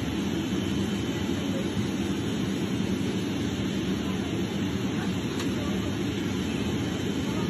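Steady, low rushing cabin noise of a jet airliner in flight.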